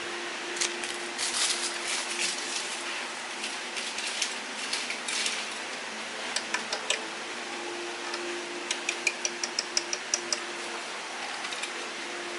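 Kitchenware being handled on a table: scattered clinks and clatters, then a quick run of about a dozen sharp ringing ticks near the middle. A steady low hum runs underneath.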